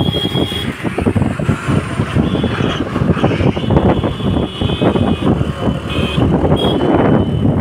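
Road noise from a moving vehicle: steady wind buffeting on the microphone and engines running in a line of traffic. Several brief horn toots sound through it.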